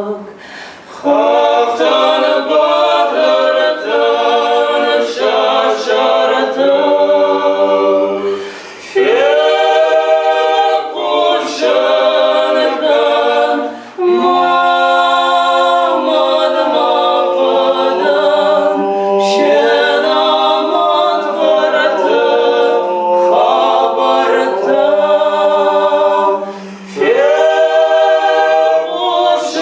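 A song in Ossetian sung a cappella by a small group of young singers, a woman and two men, in several parts at once. Long sung phrases are broken by short pauses, about a second in, a third of the way through, around the middle and near the end.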